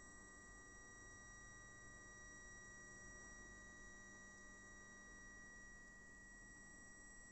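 Faint, steady test tone from a record played on a turntable during a load test. It holds one constant pitch, with fainter higher tones above it.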